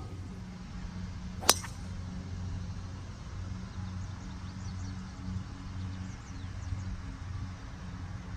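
A single sharp crack of a golf club striking a ball off the tee, about a second and a half in, over a steady low hum.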